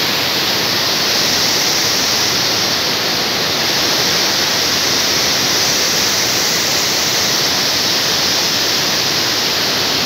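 Steady rush of water from the Machay waterfall and the whitewater rapids in the rocky river below it, a loud, even roar.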